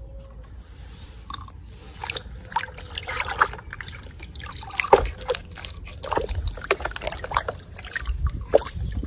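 Water in a small plastic basin sloshing, splashing and trickling as toy animals are dipped and swished through it by hand. The splashes come irregularly, starting about two seconds in.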